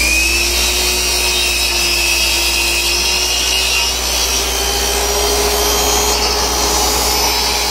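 Hitachi C12RSH 12-inch sliding compound miter saw running at full speed, its blade lowered through a wooden board for a crosscut. A shop vacuum hooked to the saw's dust port hums steadily underneath.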